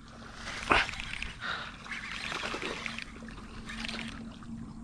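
Water trickling and splashing lightly as a fishing lure is worked across shallow, weedy water, with one sharp click about a second in.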